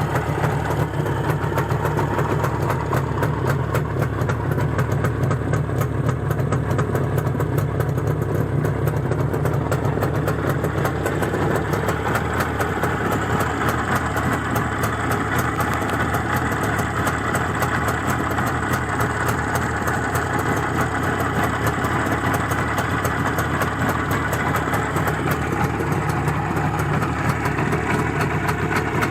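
Izh Jupiter 5 two-stroke twin-cylinder motorcycle engine, freshly balanced, running steadily at idle with no piston knock or ringing heard.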